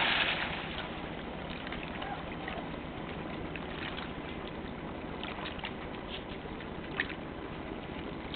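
Splash of a border collie plunging into the sea, fading within the first half second. Steady sloshing of water follows, with small splashes and clicks as the dog swims, a sharper click about seven seconds in.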